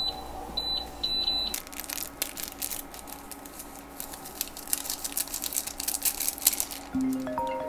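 Three short high electronic beeps, then the crinkling and tearing of plastic food packets with crunching as something dry is crushed by hand. Soft mallet-percussion music begins near the end.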